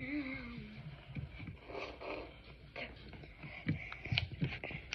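A girl's hummed note falls away at the start, followed by scattered light knocks and rustles.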